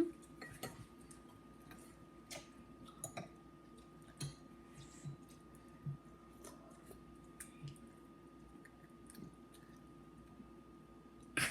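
Faint eating sounds: scattered small clicks and chewing while soup is eaten, over a steady low hum.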